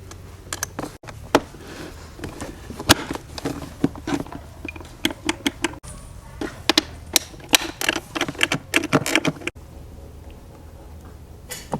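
Irregular sharp clicks and knocks of small hard parts being handled and fitted by hand, coming in quick clusters, with sudden cuts about a second in, near the middle and near the end.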